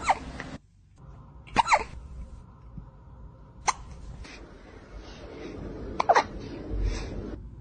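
A cat hiccupping: short, sharp hics about every two seconds, four in all.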